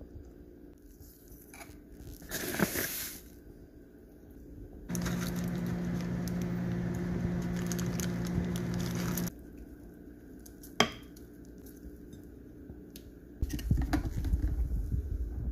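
Food being put together in glass mason jars: a spoon and jars clink, a plastic bag rustles, and for about four seconds in the middle chia seeds hiss as they pour from the bag into a jar over a steady hum. A sharp click follows, and a low rumble of handling noise comes near the end.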